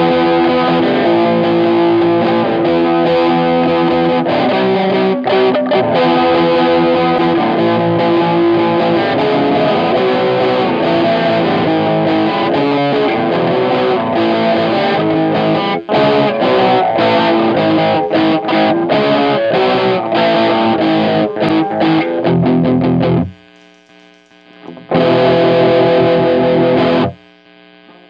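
Distorted J-Craft LTX-1 electric guitar strumming a fast rhythm part, moving from E, A, E, B minor to C#, B minor, A, G#. Near the end the strumming stops for about two seconds, then one more chord rings briefly and is cut off.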